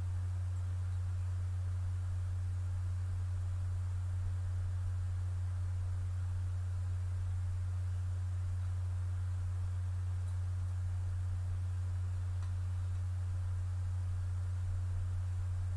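Steady low electrical hum, a single droning tone just under 100 Hz, with faint small ticks of the laptop's plastic parts being handled.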